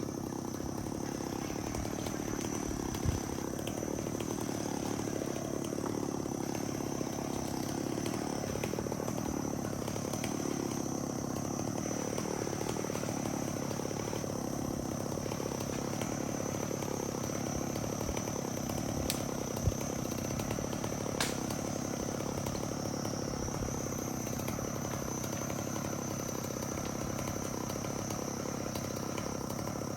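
An engine idling steadily, with a steady high-pitched whine above it and a few sharp clicks.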